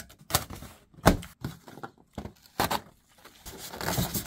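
Cardboard box being opened by hand: a series of sharp knocks and thuds from the flaps, the loudest about a second in. Near the end comes a longer scraping rub as the styrofoam packing lid shifts against the cardboard.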